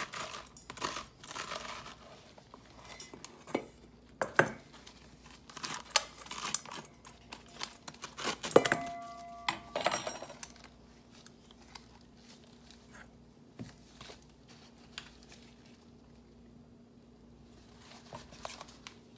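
Cooked spaghetti squash being scraped out of its shell, with scraping, rustling and tapping and knocks against a stainless steel bowl. The loudest knock, about eight and a half seconds in, sets the bowl ringing briefly; after that only a few faint ticks.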